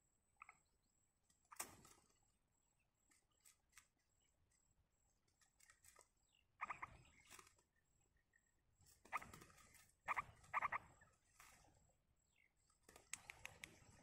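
Yellow-vented bulbuls at the nest giving several short bursts of soft, rapid chattering calls, the loudest a double burst about ten seconds in, between faint clicks and rustles.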